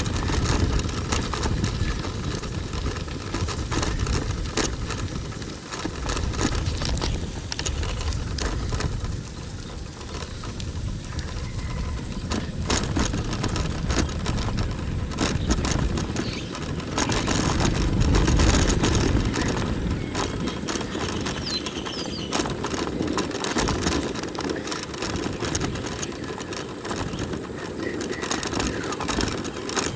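Wind rushing over the microphone and the rattle and clicking of a bicycle ridden on a concrete road, swelling louder for a couple of seconds past the middle.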